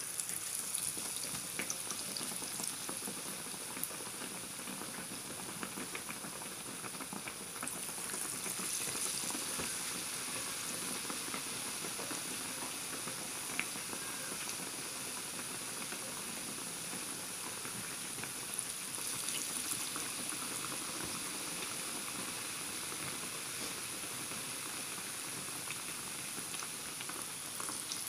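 Besan-battered bread pakoras deep-frying in hot oil in a pan: a steady sizzle full of fine crackling and popping.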